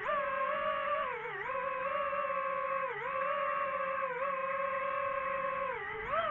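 DJI FPV drone's motors and propellers whining steadily, the pitch dipping briefly and recovering four times as the motor speed drops and picks up again.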